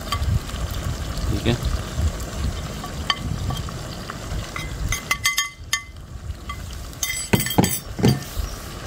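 Scattered light clinks and taps of a spice container and spatula against a cooking pot as ground garam masala is shaken in, over a low, steady rumble.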